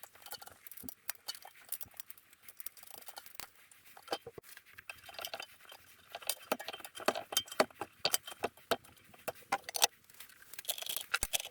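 Irregular metallic clinks, taps and rattles of small metal parts and tools being handled, a quick scatter of clicks that is busiest in the second half.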